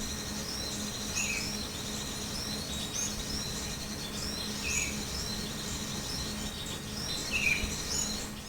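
Small birds chirping busily with short high, falling notes. A lower short call repeats three times, every few seconds. A faint steady low hum runs underneath.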